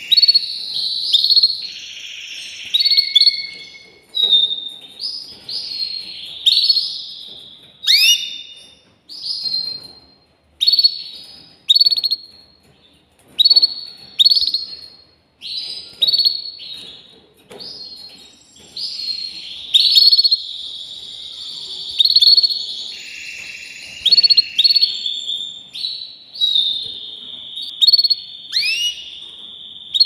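Domestic canary singing a long, varied song: runs of quick rising chirps and trills broken by held whistled notes.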